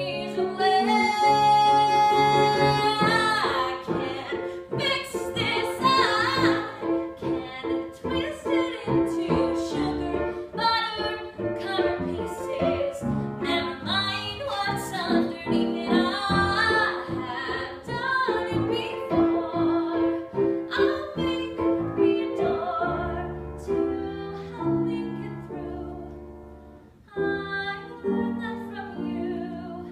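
A woman singing a musical-theatre song solo with piano accompaniment, her voice wavering with vibrato. She holds a long note about a second in.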